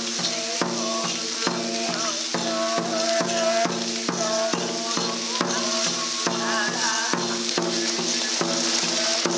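Many voices chanting a Buddhist sutra in unison, held low tones keeping time to a steady beat about twice a second.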